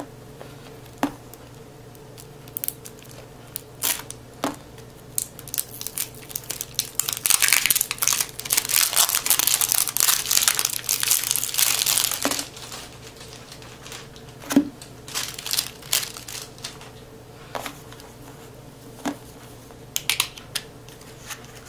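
Cellophane wrapper of a new playing-card deck being crinkled and torn off by hand, densest and loudest in a long stretch of crinkling near the middle, with scattered small rustles and clicks of handling before and after.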